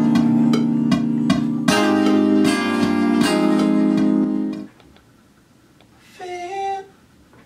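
Music: a plucked-string instrument sound playing sustained chords with repeated note attacks. It cuts off abruptly about four and a half seconds in, and a short, quieter two-note phrase follows near the end.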